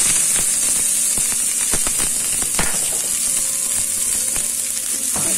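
Chopped spring onions sizzling in hot vegetable oil in a frying pan: a steady hiss with a dense run of small crackling pops.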